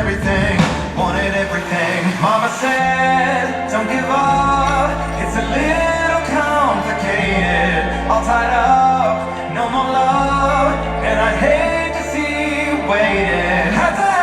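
A song with a lead singing voice over held bass notes that change every second or two: the ice show's music.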